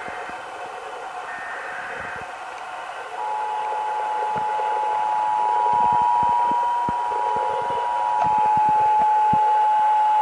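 Radio hiss with scattered crackle. About three seconds in, the Emergency Alert System two-tone attention signal (853 Hz and 960 Hz sounded together) starts and holds steady.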